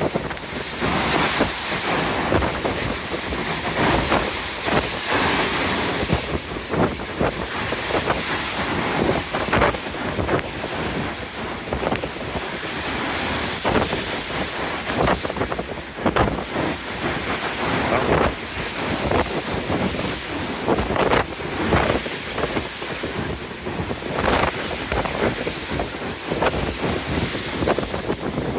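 Strong wind buffeting the phone's microphone in irregular gusts over the steady rush of open-ocean waves.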